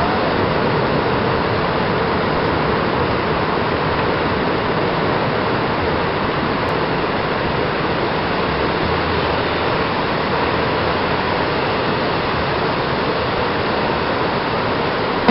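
Ocean surf breaking on a sandy beach: a steady, even rush of waves with no distinct individual crashes.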